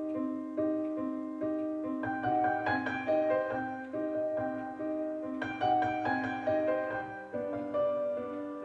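Background music: a piano playing a steady run of held chords, a new chord or note struck about every half second to a second.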